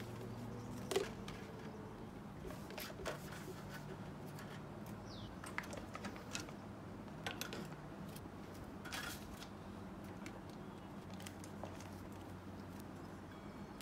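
Plastic skincare bottles and tubes being picked up and set down on a metal-mesh cart shelf: scattered light knocks and clicks, the sharpest about a second in, over a low steady hum.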